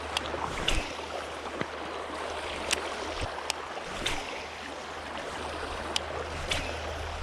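Creek water running steadily over the current, with scattered sharp clicks and small splashes on top.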